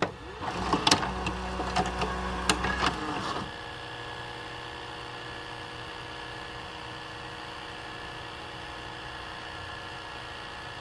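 A small motorised mechanism whirring with several sharp clicks for about three and a half seconds, then stopping, leaving a steady low hum with a few constant tones.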